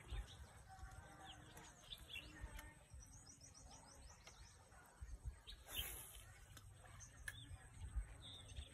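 Small birds chirping faintly, short high notes scattered throughout, with a quick run of rapid chirps about three seconds in, over a low rumble.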